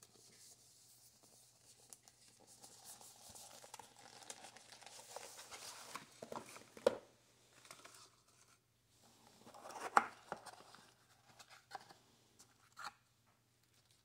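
Cardboard knife packaging being handled and opened: paper and card sliding and rustling, with a few sharp knocks, the loudest about ten seconds in.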